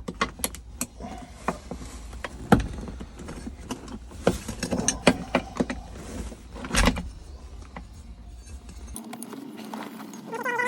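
Irregular metallic clicks, clinks and rattles of hands and tools working a handbrake cable's spring-finger retainer, squeezing the fingers in to push it free.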